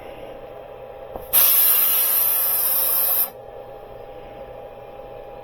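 A brief click, then air hissing out of a tire's valve stem for about two seconds before cutting off.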